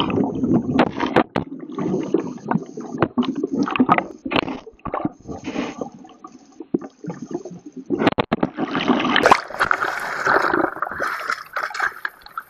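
Water gurgling and bubbling around a kayak-mounted camera that is under the surface as the kayak capsizes, muffled and full of sharp clicks and knocks. About eight seconds in, it breaks the surface into brighter splashing and sloshing.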